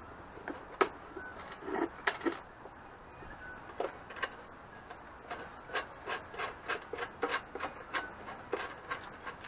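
Small wooden and metal clicks and rubbing as hands handle a drilled wooden block with a bolt set in it: a few scattered knocks in the first two seconds, then a run of light taps about three a second near the end.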